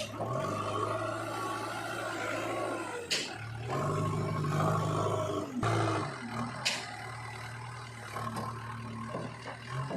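Diesel engine of a JCB 3DX backhoe loader running under changing load, its pitch rising and falling as it works, with two sharp clanks.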